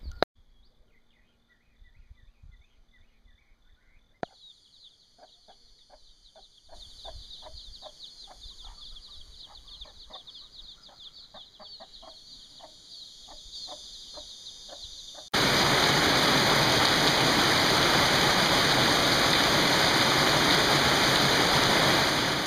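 A hen clucking in short calls while her chicks peep. About two-thirds of the way through, this gives way to heavy rain pouring steadily onto tile roofs and a concrete courtyard, the loudest sound here.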